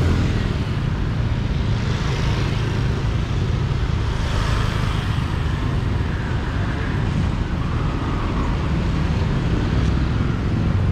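Motor traffic on a street: a steady low rumble of vehicle engines and tyres that never lets up.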